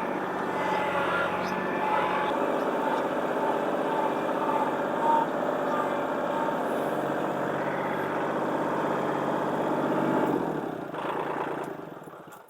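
International crane truck's engine running steadily at raised idle, fading out near the end.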